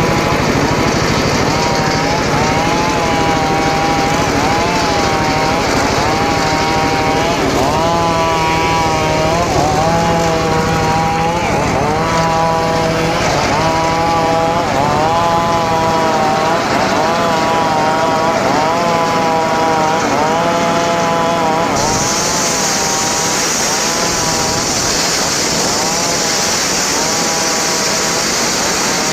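Homemade engine-driven circular saw running while cutting teak, its pitch sagging and recovering every second or two as the load comes on and eases. About three-quarters of the way through a higher hiss comes in and the low hum drops away.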